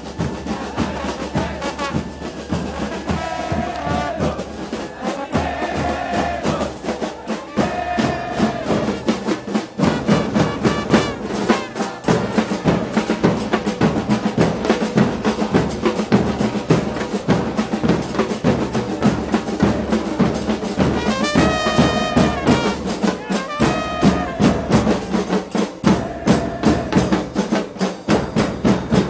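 Football supporters' street band: marching drums beaten with sticks keep a fast, steady beat under a trombone, while the marching crowd sings a chant. Held brass-and-voice notes rise above the drumming several times.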